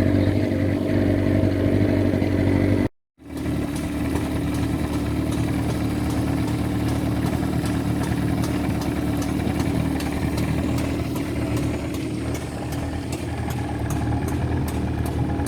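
Motorboat engine running steadily at cruising speed, cutting out abruptly for a moment about three seconds in and then carrying on.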